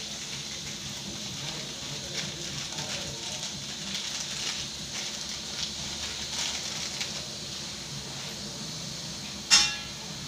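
Gas stove burner hissing under a steel pot of water heating toward the boil, with a faint crackle. A short, sharp pitched sound stands out near the end.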